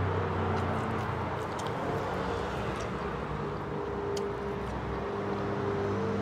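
Chewing on grilled chicken, with a few faint sharp mouth clicks, over a steady low motor hum.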